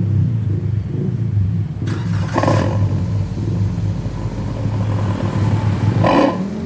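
Petrol car engine running through a SUOS 'ngorok' two-outlet aftermarket exhaust, giving a deep, steady rumble. Two short bursts of sharper, hissier noise come about two and a half and six seconds in.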